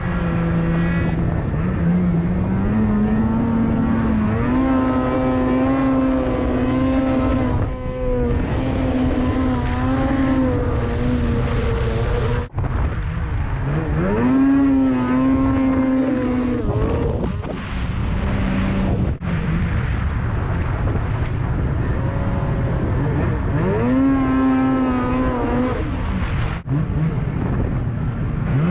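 Snowmobile engine running hard, its pitch rising and falling again and again as the throttle is opened and eased off. The sound cuts out sharply for an instant three times.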